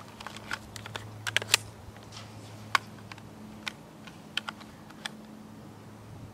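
About a dozen light, sharp clicks and ticks at irregular intervals, the loudest a cluster of three about a second and a half in, over a faint steady low hum.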